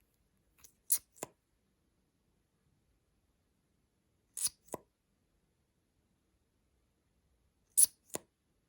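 Short, sharp clicks in three pairs, a few seconds apart. Each pair is a bright click followed a moment later by a softer, duller one.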